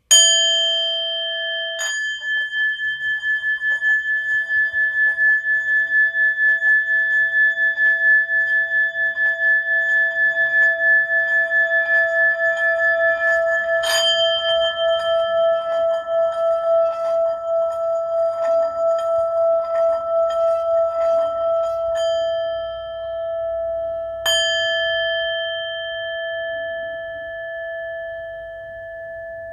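Small hand-held metal singing bowl ringing with one steady pitch and a few higher overtones: struck with a mallet four times, at the start, about two seconds in, about fourteen seconds in and about twenty-four seconds in, its tone pulsing evenly in between and fading slowly near the end.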